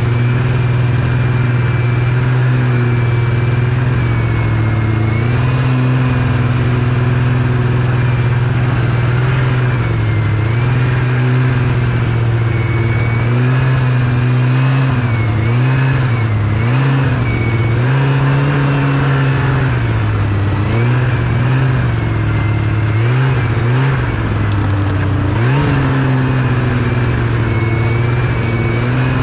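Yamaha Venture snowmobile engine running under way, steady at first, then its engine speed dipping and rising again and again, with one quick climb a few seconds before the end.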